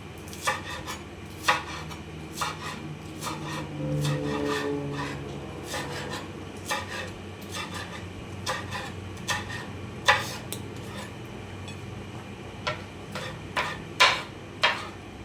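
Kitchen knife chopping onions on a cutting board: irregular sharp knocks of the blade hitting the board, with rubbing sounds of the blade through the onion between them.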